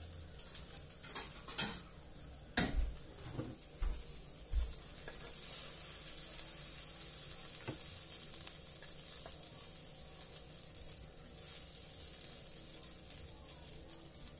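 Red fried rice sizzling in a hot aluminium wok while a wooden spatula scrapes and pushes it out onto a plate. There are a few sharp knocks and clatters in the first four seconds, the loudest about two and a half seconds in, and a steady sizzling hiss from about five seconds on.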